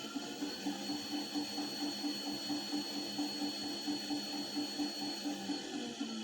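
Washing machine running its wash cycle: a steady motor whine over an even, rhythmic pulsing of about four to five beats a second, the odd noise that the machine makes during the wash.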